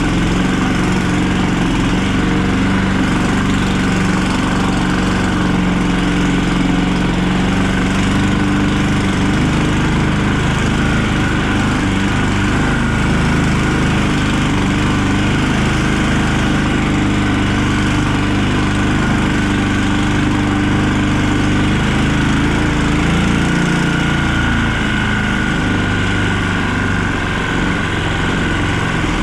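Vehicle engine running steadily while driving, heard from inside the cab, its note shifting briefly about three-quarters of the way through.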